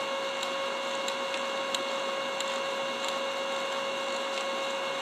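Brother 7820 laser printer running: a steady mechanical hum with a constant whine and scattered faint ticks.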